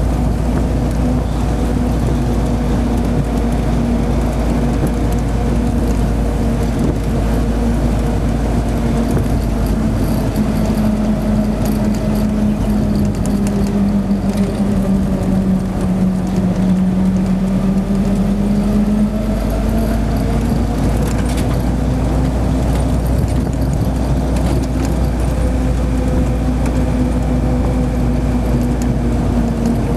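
Hotchkiss M201 jeep's four-cylinder side-valve engine running at road speed from the driver's seat, with a steady low rumble underneath. The engine note sags for several seconds about halfway through, then climbs back to its earlier pitch.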